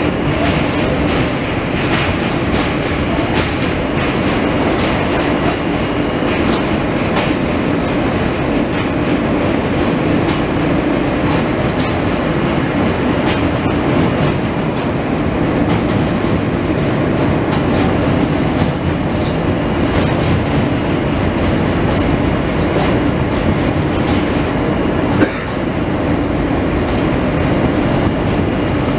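New York City subway train running at speed, heard from inside the car: a steady, loud rumble and rattle with wheels clicking over rail joints. There is one sharp knock about 25 seconds in.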